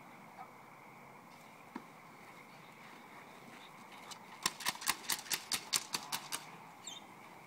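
Bitework clatter stick rattled in a quick run of sharp clacks, about five a second for two seconds, starting a little past halfway.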